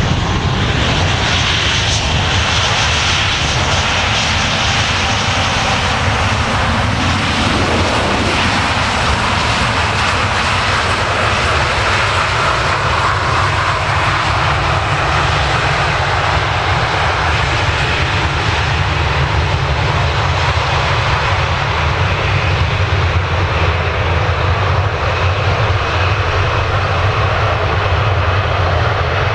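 Boeing 737-800's two CFM56-7B turbofans running loud and steady in reverse thrust as the airliner slows on the runway after landing.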